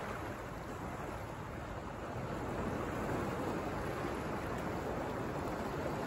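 Ocean surf: small waves breaking and washing over a sandy, rocky shore as a steady rush that swells a little partway through.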